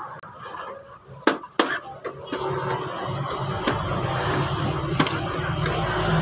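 A small brush scrubbing and knocking against the paper guide inside an Epson L1300 inkjet printer: a few sharp taps, the loudest two close together about a second in, over a scratchy rustle. A low steady hum builds up from about halfway.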